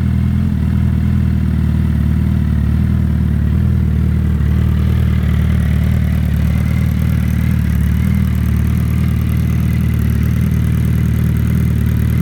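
2014 Suzuki Hayabusa's inline-four engine idling steadily through a Coffman's aftermarket exhaust.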